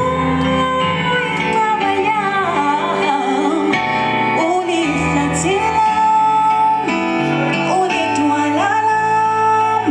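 Music: a singing voice gliding between held notes over guitar and sustained bass notes.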